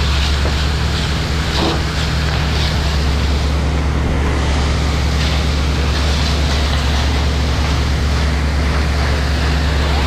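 A fire hose's straight stream rushing from a handheld nozzle and spattering onto wet gravel, over the steady drone of an engine running.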